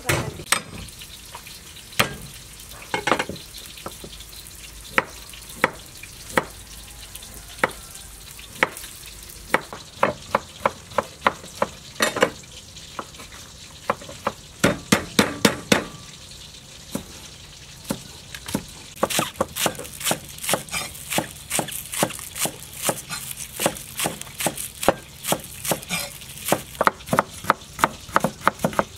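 Knives slicing and chopping vegetables on thick wooden chopping boards: sharp, irregular taps, scattered at first, then in quick runs from about ten seconds in and almost continuous through the last ten seconds.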